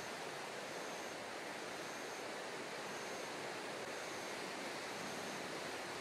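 Steady wash of rippling sea water and wind, an even hiss with no distinct splashes.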